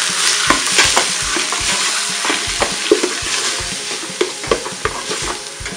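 Ground beef sizzling in hot oil in a stainless steel stock pot on high heat, while a metal spoon stirs it, scraping and clicking against the pot. The sizzle slowly eases off.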